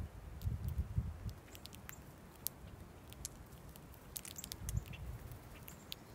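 Sparrows pecking seed from a stone feeder bowl: many quick, irregular clicks and ticks of beaks on seed and stone, with a cluster of them a little after 4 seconds. Low rumbling thuds come about half a second to a second in and again near 5 seconds.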